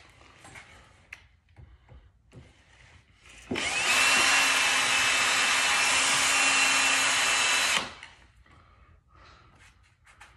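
Power drill running for about four seconds, spinning up briefly and then holding a steady whine as it drills out spot welds in the Dodge Charger's sheet-metal body.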